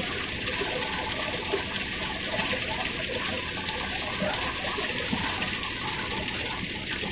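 Belt-driven cloth-shredding machine running steadily, a dense fast rattle and whir as old cloth is torn into stuffing for mattresses and quilts.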